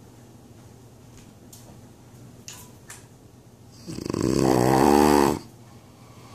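A sleeping man snoring: after a few seconds of quiet breathing, one loud, fluttering snore about four seconds in that builds over a second and a half and cuts off sharply.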